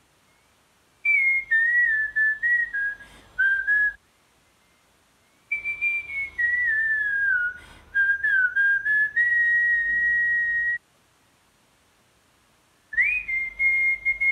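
A man whistling a melody through pursed lips, in three phrases. The first two drift downward in pitch, the second ending on a long held note; the third phrase starts near the end.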